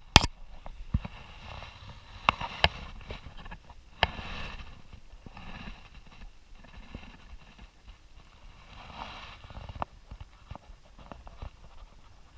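Handling noise aboard a plastic kayak as a freshly caught redfish is held up: a few sharp knocks, loudest in the first few seconds, and soft rubbing and rustling in between.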